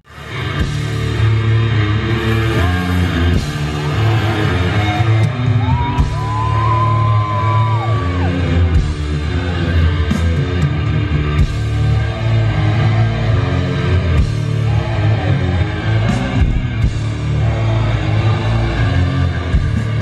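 Loud heavy metal music with guitar, drums and vocals, running steadily throughout. Near the middle a held high note bends up and back down.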